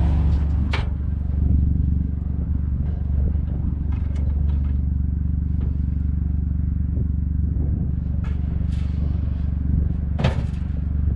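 A vehicle engine running steadily with a low hum, with a few short clicks and knocks, one about a second in and a louder one near the end.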